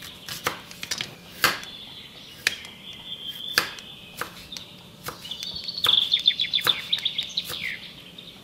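Kitchen knife tapping through slices of onion and ginger onto a plastic cutting board, sharp irregular knocks about once a second. A bird chirps throughout, breaking into a fast trill in the second half.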